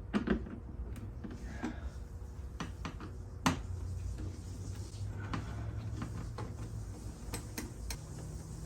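Irregular metallic clicks and knocks of hand tools and bolts being worked off a motorcycle fairing, one sharp knock about three and a half seconds in and a few more near the end, over a steady low hum.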